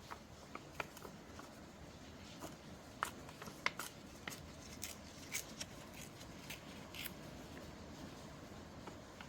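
Paper being handled and shuffled for art journalling: irregular light rustles and taps, a few sharper ones about three to four seconds in, over a faint steady hiss of rain.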